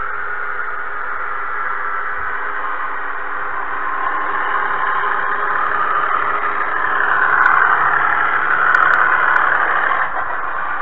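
Narrow-gauge model train running along the track, heard from a camera riding on it: a steady whirring hum of the small electric motor and wheels on the rails. It grows louder around seven seconds in and eases again near the end.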